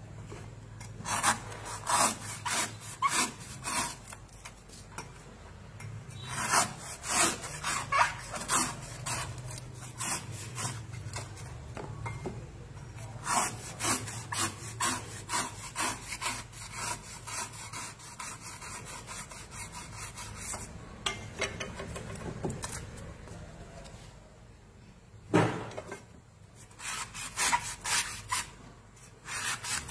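Kitchen knife paring the fibrous husk off a young green coconut in short, repeated scraping strokes, with a quieter pause about two-thirds of the way through.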